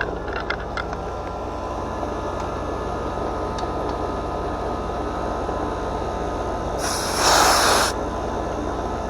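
A steady low machine hum, with a few light clicks just after the start and a loud hiss lasting about a second, about seven seconds in.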